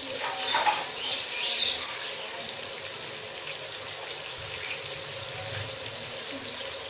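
Sliced onions sizzling in hot oil in a pot: a steady hiss, with a louder spell of crackling between about half a second and two seconds in.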